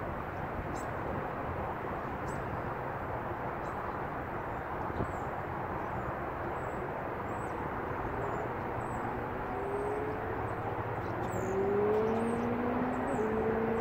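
Steady outdoor background rumble with faint bird chirps. In the second half a distant engine rises in pitch in two or three steps and then holds steady, growing slightly louder.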